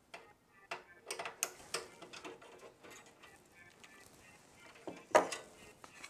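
Small metallic clicks and ticks as PCIe expansion-slot covers are worked loose from the rear bracket of a PC case, with one louder clack about five seconds in.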